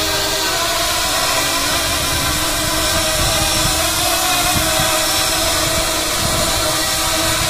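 7-inch FPV quadcopter's brushless motors and propellers whining steadily while it hovers just above the ground, several pitches wavering slightly as the motors hold it in place.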